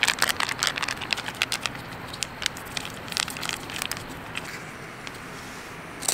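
Foil cat food pouch crinkled and rustled in the hand to attract cats: a rapid run of sharp crackles that thins out over the last couple of seconds.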